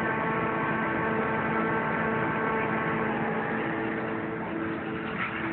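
Claas Jaguar 840 forage harvester running steadily as it chops maize, together with the engine of the tractor pulling the trailer alongside. It is a constant drone with several held tones.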